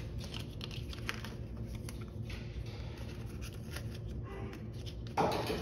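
Paper bills and envelopes rustling and crinkling with small quick clicks as cash is counted and stuffed into a savings-challenge envelope. A voice starts just before the end.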